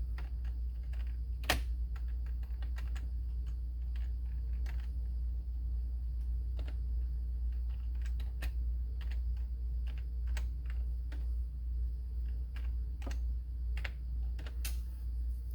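Computer keyboard keys being typed in irregular runs of sharp clicks, with one louder key strike about a second and a half in.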